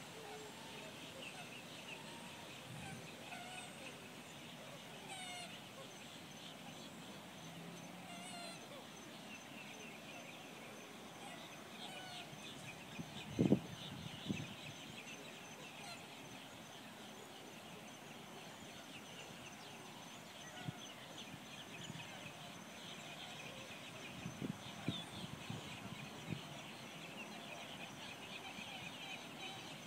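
Wetland evening ambience: many birds calling and chirping, with one louder, sharp call or knock about halfway through and a few shorter ones near the end.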